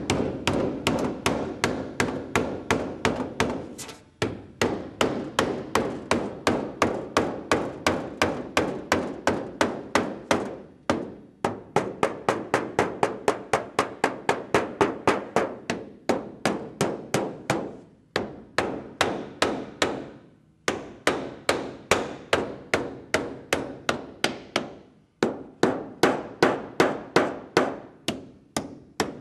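Rapid, even mallet blows, about three to four a second with a few short pauses, tapping a goose-strike dent out of the aluminium leading-edge skin of a light aircraft's wing.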